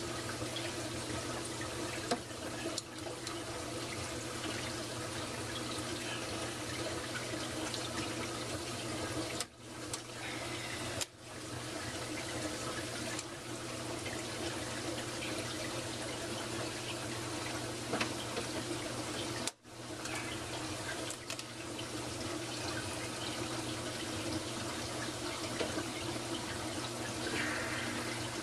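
Steady running water in a reef aquarium's plumbing, over a steady low hum. There are a few faint clicks, and the sound drops out briefly three times.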